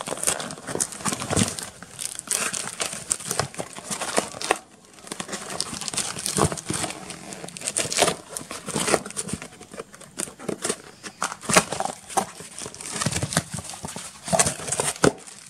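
Crinkling and rustling of packaging as a cardboard parcel is opened: packing tape cut and torn, then bubble wrap and a plastic bag handled as the contents are pulled out, in a run of irregular crackles.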